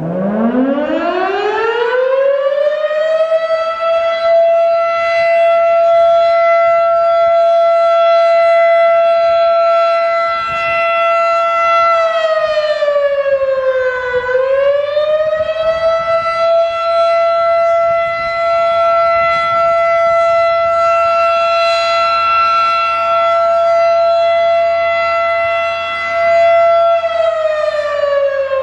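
Fedelcode Type 5 electromechanical fire siren winding up from low to a high, steady wail over about three seconds. It holds the pitch, sags briefly and climbs back about halfway through, then starts to sag again near the end.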